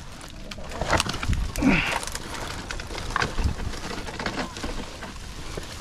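A large piece of driftwood being broken up and handled: several sharp knocks and a rough crunching burst about two seconds in, over a steady low rumble.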